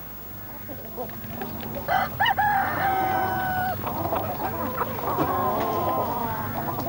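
A rooster crowing, its long held last note ending about four seconds in, followed by chickens clucking.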